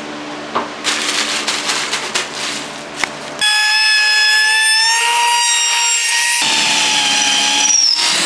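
Wooden boards being handled, rubbing and knocking together. Then about three seconds in a handheld trim router comes in with a loud, steady, high whine, and a little over halfway through it takes on a rushing sound as it cuts into the wood.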